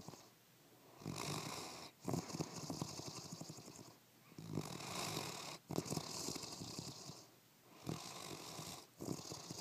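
Spinone Italiano dog snoring in deep sleep: about three slow breaths, each a fluttering, rattling snore in two parts with a brief break between them and a quieter pause before the next breath.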